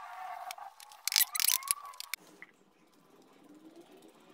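Clattering knocks and rattles of objects being handled on a wooden workbench, loudest between one and two seconds in, then a faint low rustle of hands handling the tape-wrapped horns.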